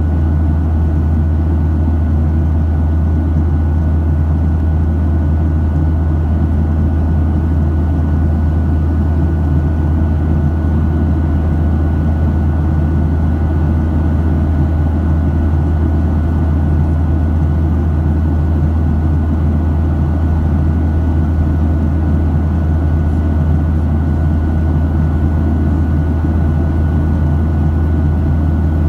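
Cabin noise of a Boeing 737-700 in the climb: the steady deep drone of its CFM56 turbofan engines and the rush of air past the fuselage, with a thin steady whine above it.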